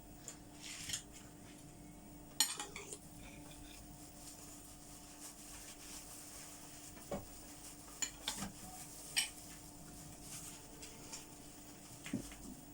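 Cutlery and dishes clinking and knocking now and then, the loudest clink about two and a half seconds in, over a faint steady hum.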